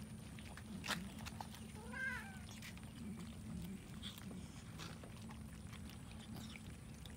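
A cat meows once, briefly, about two seconds in, over faint scattered clicks from cats eating rice.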